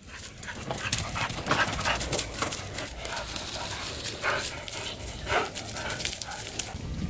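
A dog panting close by, with a few brief whimpers, over light clicks and knocks of metal parts and cardboard being handled.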